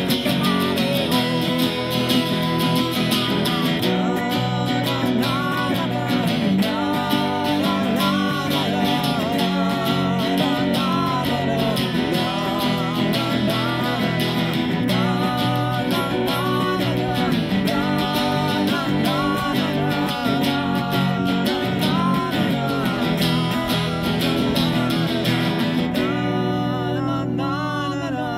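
Two acoustic guitars played together, with a man singing over them; the singing gives way to guitar alone near the end.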